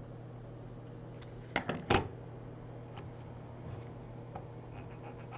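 Three sharp clicks of tools and phone parts being handled on the repair bench, about one and a half to two seconds in, the last the loudest, then a few faint ticks, over a steady low hum.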